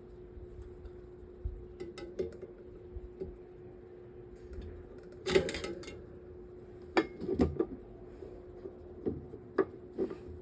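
Screwdriver and metal table-fan parts being handled: scattered metallic clicks and knocks, with a louder clatter about five seconds in and a quick run of clinks a couple of seconds later. A faint steady hum runs underneath.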